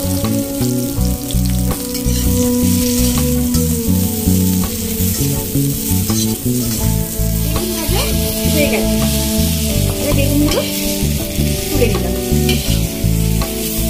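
Eggplant pieces sizzling as they fry in hot oil in a kadai, with scattered small clicks as the pieces are moved about.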